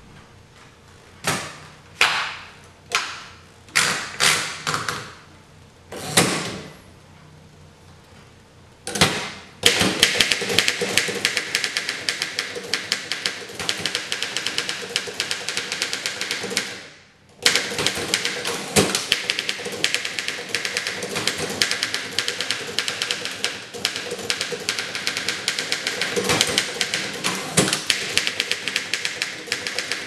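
1911 Underwood No. 5 manual typewriter. First come several separate knocks as paper is wound into the platen, then rapid continuous typing of keys and typebars from about ten seconds in, with one short pause about halfway through.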